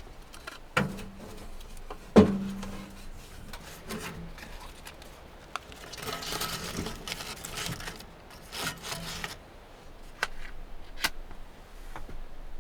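Wood being handled and worked: two hard knocks on wood, about a second and two seconds in, each leaving a short low ring, then stretches of rubbing and scraping on wood and a few light clicks.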